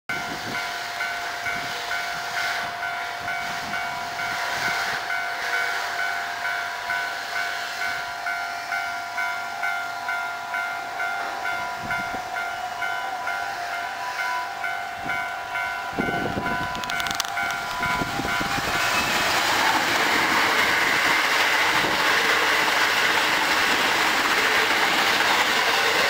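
Japanese level-crossing alarm bell ringing at about two strikes a second as an eight-car Hankyu 9300 series electric train approaches. The train's running noise swells from about 16 seconds in and drowns out the bell as the train passes at speed.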